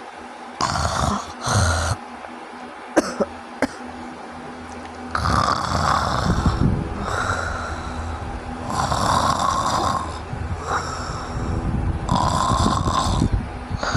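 A person snoring heavily in sleep, snoring that the uploader takes for obstructive sleep apnea. Two short bursts and a few sharp clicks come first. From about five seconds in, loud rasping snore breaths follow one after another, each lasting one to two seconds.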